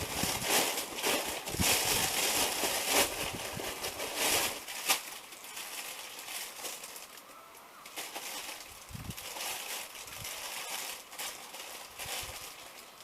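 Rustling and crinkling of packaging being handled while an item is unwrapped, busy and irregular for the first five seconds or so, then quieter with a few soft knocks.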